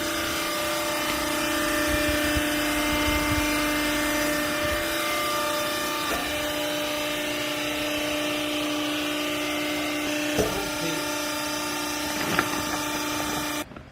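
Hydraulic power unit of a vertical clothes baler running, a steady whine with a few fixed tones, with two sharp knocks late on; it cuts off suddenly just before the end.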